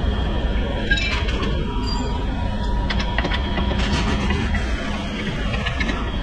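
Metal clinks and taps as a car's front lower control arm is handled and worked loose, over a steady low workshop rumble.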